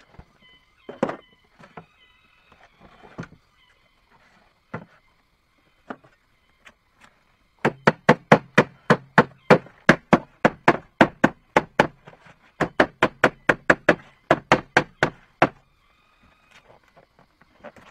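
Rapid, evenly spaced knocks of a tool striking wood, about four a second, in two runs with a brief pause between. Scattered light taps come before them.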